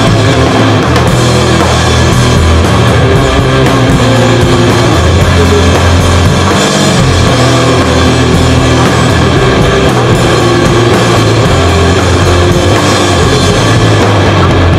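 Loud, fast punk rock recording: electric guitar and drum kit playing without a break.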